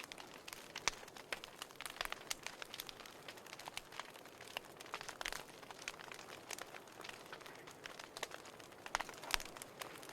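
Wood fire in a fireplace crackling, with irregular sharp pops and snaps over a soft hiss.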